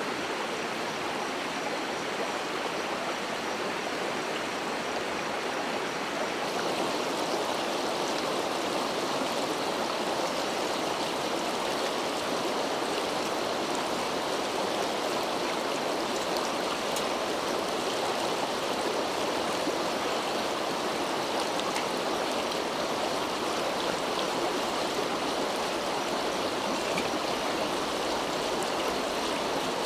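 Shallow, fast mountain stream rushing over rocks, a steady wash of water noise that grows a little louder about six seconds in.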